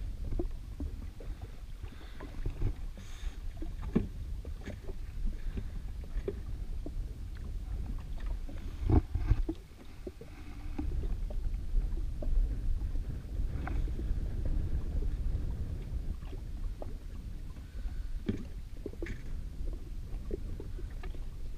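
Wind rumbling on the microphone and small waves lapping against the hull of an anchored Yamaha WaveRunner jet ski. A few light knocks come through, the loudest about nine seconds in.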